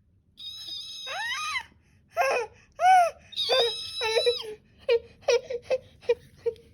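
High-pitched vocal squeals and whimpers: a long squeal that bends down in pitch, several shorter arching squeals, then a quick run of short whimpers.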